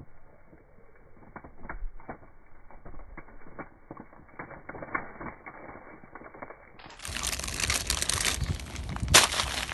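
Bare feet crushing crunchy cheese puffs and breadsticks on a plastic sheet: faint, muffled scattered crackles at first, then about seven seconds in a sudden change to loud, dense crunching and crackling.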